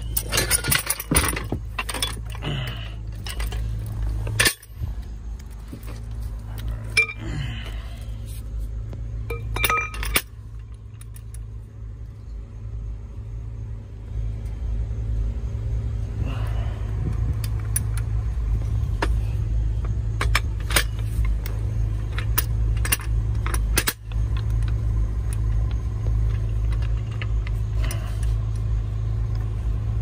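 Scattered metal clinks and clanks from a steel floor jack and tools being handled, over a steady low rumble.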